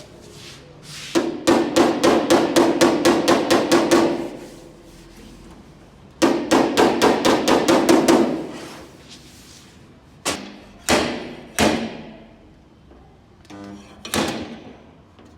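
Body hammer striking a sheet-metal panel: two quick runs of about six blows a second, with the metal ringing, then three separate heavier blows and a last lighter one near the end.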